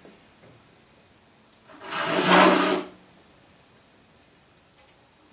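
A Hishiki Japanese rip saw makes a single cutting stroke into a board, about two seconds in, starting the kerf for a dovetail pin.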